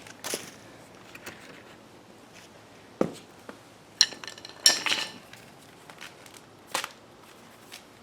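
Handling noises from work on a fat-bike wheel and tube: scattered light clicks, a thump about three seconds in, then a ringing metallic clink and clatter about a second later.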